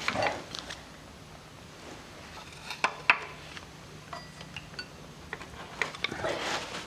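A few scattered metallic clinks and taps of hand tools on the front of a VG30 engine as the cam gear is nudged to line up its timing mark; the sharpest clink comes about three seconds in.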